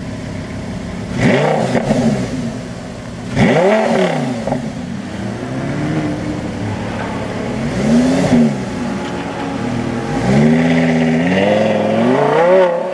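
Lamborghini Gallardo LP570-4 Super Trofeo Stradale's V10 engine revved hard a few times at standstill, each rev rising and falling quickly, then revving up in steps as the car pulls away near the end.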